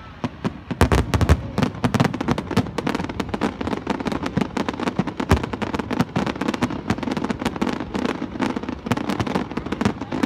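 A fireworks display in full volley: many sharp bangs and crackles come several a second and overlap, starting hard about a second in.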